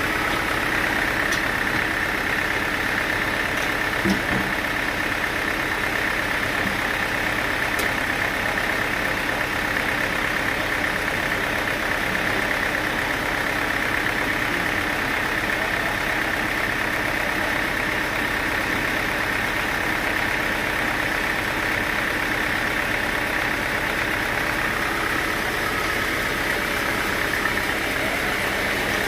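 Sawmill machinery running steadily: a constant mechanical drone with a steady high whine, and a brief knock about four seconds in.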